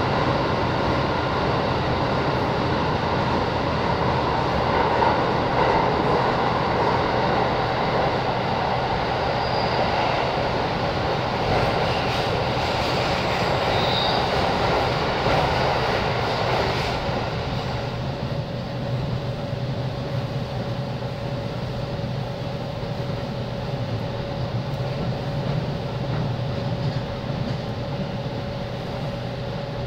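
JR East 205 series 0 electric multiple unit running, heard from aboard the train: a steady rumble of wheels on rail and motor noise. About halfway through the noise drops and settles into a quieter, steadier run with a hum.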